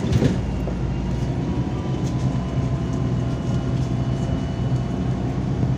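Inside a MAZ-203 city bus under way: steady engine drone and road noise with a faint whine, and a brief thump just after the start.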